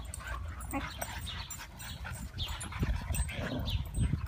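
A pack of huskies play-fighting: panting and short whines, with some low rumbling sounds in the second half.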